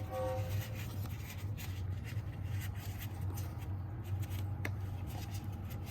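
Hands pulling a replacement car door mirror out of its foam packaging: light rubbing and scraping with a few faint clicks, over a steady low hum.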